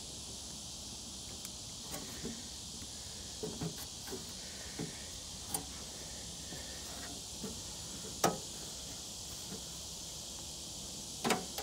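Steady high-pitched insect chorus, with scattered clicks and knocks of a wrench and battery cable being fastened, the loudest about eight seconds in and another near the end.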